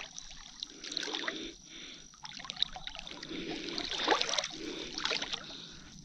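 River water sloshing and trickling, stirred by a person wading and reaching down into it, with scattered small splashes.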